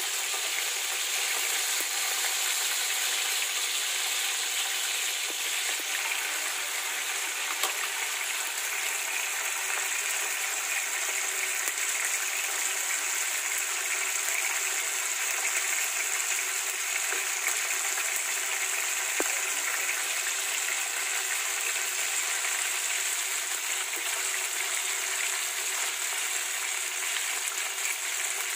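Tuna steaks sizzling steadily as they fry in hot oil in a frying pan, with a few faint clicks.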